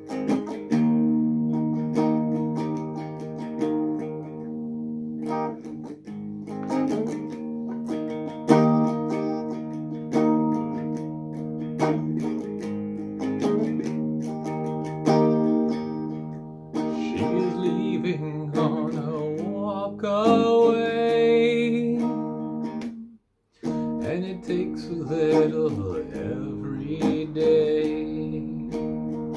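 Electric guitar strumming chords through a small practice amp, an instrumental break in the song. Around two-thirds through, a wavering, sliding wordless vocal line rises over it, and the sound drops out for a split second shortly after.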